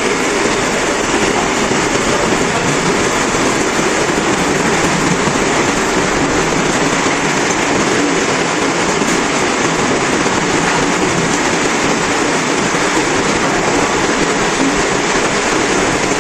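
Lathe machine running under cutting work, a loud, steady mechanical noise with no pauses.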